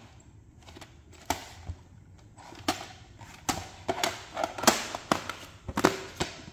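Plastic VHS tape cases being handled: a string of irregular clicks and knocks, the loudest a little under five seconds in.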